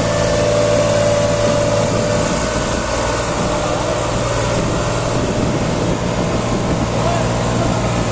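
New Holland 3600-2 tractor's diesel engine running steadily while it pulls a trolley fully loaded with earth.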